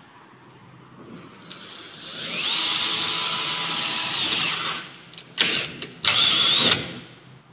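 Cordless drill drilling into a sliding door's metal frame: the motor speeds up to a steady high whine for about two seconds and winds down, then two short bursts of the trigger follow.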